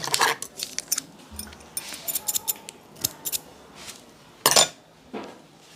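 A run of sharp, irregular clicks and snaps, with a louder, longer burst about four and a half seconds in.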